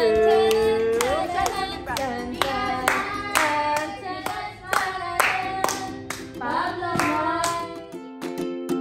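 Background song with a singing voice and hand claps. Near the end it gives way to a plucked ukulele tune.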